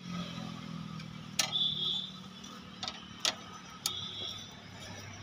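A T-handled box spanner being turned on a bolt of a scooter's rear grab rail: four sharp metal clicks at uneven intervals, with short high squeaks after the first and the last. A low steady hum runs underneath.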